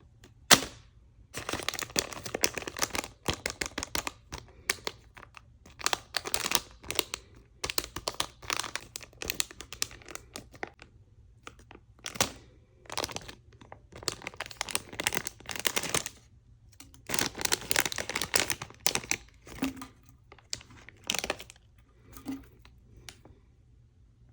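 Packaging being crinkled and torn open by hand in repeated bursts with short pauses between, with a few sharp cracks.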